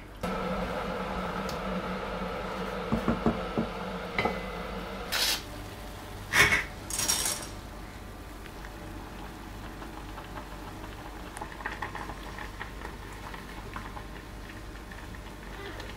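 Silicone spatula stirring and scraping thick miso broth in a stainless steel pot, with a few sharp clatters of utensil against pot about five to seven seconds in. After that, dry ramen noodles go into a pot of boiling water, which bubbles faintly.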